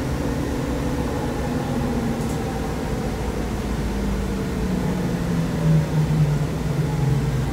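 Interior of a 2004 Nova Bus LFS city transit bus under way: steady engine and drivetrain drone with road noise, heard from inside the passenger cabin. A humming tone swells about two-thirds of the way through.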